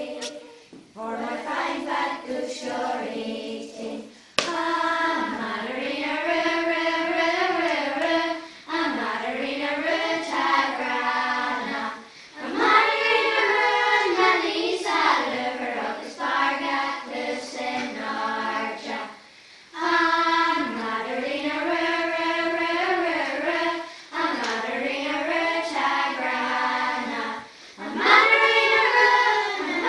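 A choir of primary-school children singing together, phrase by phrase, with short breaks for breath between the phrases.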